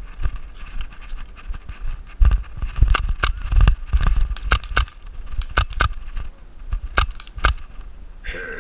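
Airsoft guns firing single sharp shots, mostly in quick pairs, about eight in all, over rumbling thumps of movement and handling near the microphone.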